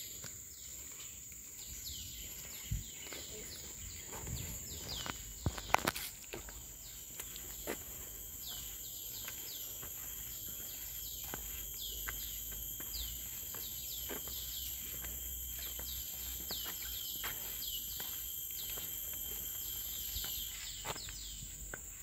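Tropical forest ambience: a steady high-pitched insect drone with many short, falling chirps repeating throughout. A few sharp knocks stand out, the loudest about six seconds in.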